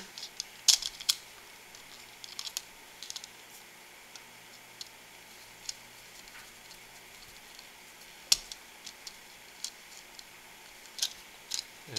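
Scattered small clicks and scrapes of wires being pushed into a plastic screw-terminal block and a small screwdriver turning its screws, with a sharper click about eight seconds in.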